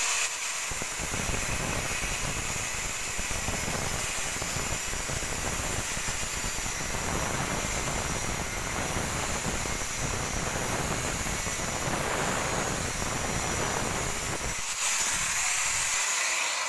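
Electric angle grinder with a thin cut-off wheel cutting through a steel tube in one long, steady cut. Near the end the wheel comes out of the cut and runs free for about two seconds.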